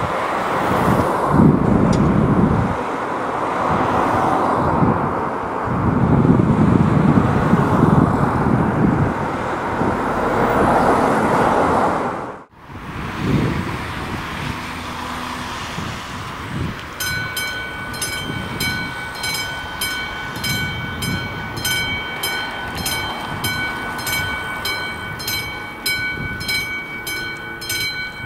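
A classic level-crossing warning bell starts ringing about two-thirds of the way in, fast strokes about twice a second, with the red warning lights lit: it signals an approaching train. Before it, swelling road and wind noise.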